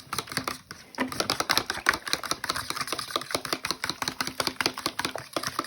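Eggs being beaten with a fork or whisk in a bowl: quick, even tapping and clicking against the bowl, several strokes a second.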